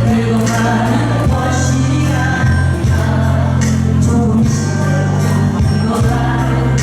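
Korean trot song playing at concert volume, with sustained bass notes that change every second or so and regular high percussion hits.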